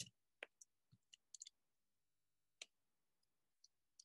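Near silence broken by a handful of faint, irregularly spaced clicks: a small brass spanner working the nuts on the brass plates of a pendulum clock movement.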